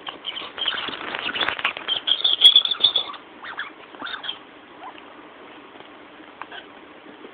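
Squeaky toy ball squeaking as a Jack Russell-Yorkie mix chews and paws at it, with scuffling on the couch cushion. The squeaking is loudest about two to three seconds in, and a shorter squeak comes around four seconds.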